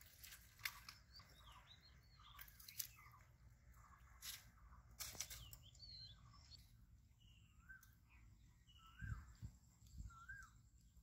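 Faint small-bird chirps at intervals, short rising-and-falling notes that come more often in the second half. A few short sharp clicks or crunches sound in the first half.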